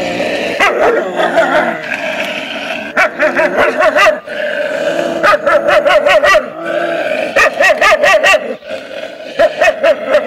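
Several young stray puppies yelping and whining while being fed, many short high calls overlapping in quick runs.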